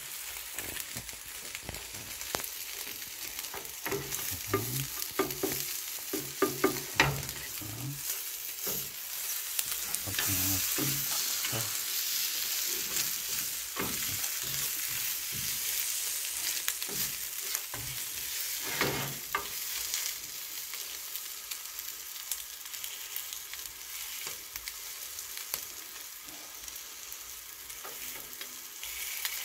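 Cheese egg roll sizzling in oil in a rectangular nonstick egg-roll pan over a gas flame, louder in the middle stretch. A slotted spatula scrapes and clicks against the pan now and then as the egg is pushed and folded.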